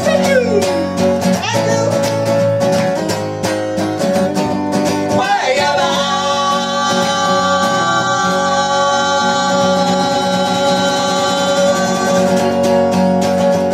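Live blues-rock vocal and acoustic guitar duo: the female singer slides through sung phrases over strummed guitar, then holds one long note for the last several seconds as the song draws to its close.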